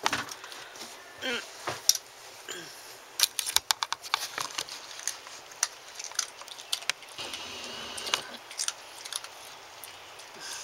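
Small dog chewing a chicken treat: an irregular run of sharp clicks and crunches.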